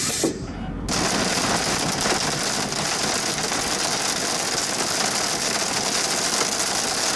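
Heavy rain pelting the windshield and body of a storm-chase vehicle, heard from inside as a dense, steady hiss of drops. It cuts in abruptly about a second in.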